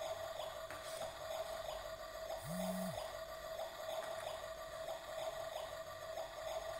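Electronic cooking sound effect from a battery-powered toy kitchen set's small speaker: a steady tone with a short chirp repeating two to three times a second. A brief low hum comes about two and a half seconds in.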